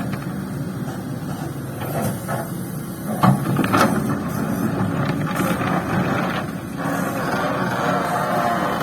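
Kobelco hydraulic excavator's diesel engine running steadily under working load, with several metallic knocks and clanks, the loudest a little past three seconds in.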